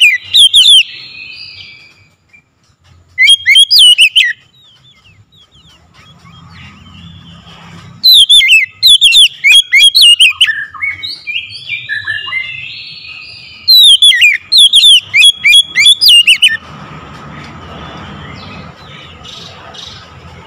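Oriental magpie-robin singing loudly in bursts of rapid, sharply sliding whistled notes: a short phrase at the start, another about three seconds in, and longer phrases about eight and fourteen seconds in, with softer, lower warbling between the last two. The song stops about two-thirds of the way through, leaving only a low background noise.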